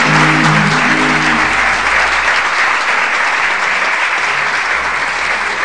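Audience applauding at the end of a live song, while the last held notes of the music die away in the first second and a half.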